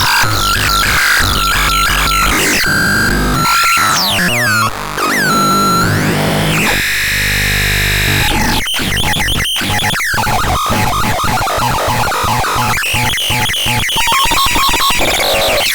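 Synthesizer being played through its sounds: electronic tones with swooping pitch glides and sweeps, a stretch of hissy noise in the middle, then fast choppy note sequences.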